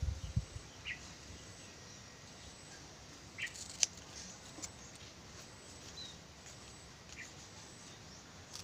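A few quiet snips of scissors cutting through coconut-leaf strips to shape a woven fish's tail, the sharpest about four seconds in, with faint short chirps in between.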